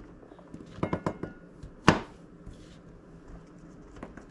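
Light clicks and taps of sliced mushrooms being handled over a plastic tray and plastic cutting board. A quick cluster of clicks comes about a second in, then one sharper knock about two seconds in and a faint click near the end.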